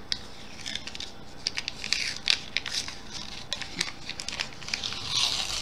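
Folded cardboard packaging handled and pulled open, crinkling and crackling with many small clicks.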